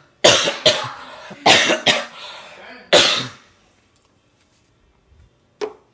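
A person coughing: several harsh coughs in quick succession through the first half, the last one about three seconds in.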